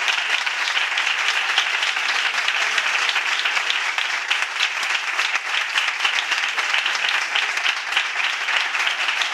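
Applause: many hands clapping in a dense, steady patter that runs on without a break.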